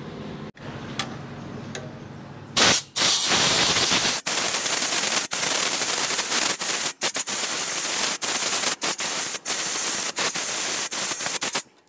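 Compressed-air blow gun hissing into the oil filler hole of a Honda GX160 engine. It starts about two and a half seconds in and runs in long blasts broken by many short gaps.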